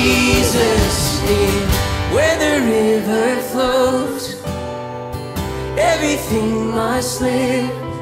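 Live worship band music: acoustic guitar and band accompaniment with a woman's voice singing long, sliding notes.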